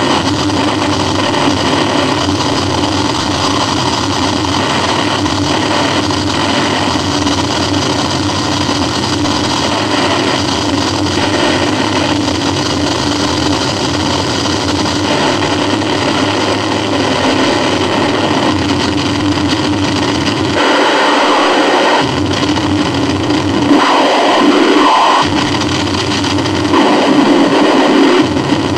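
Harsh noise music: a loud, dense wall of distorted noise with a steady droning band underneath. From about two-thirds of the way through, the low rumble cuts out in stretches while a harsher midrange comes forward.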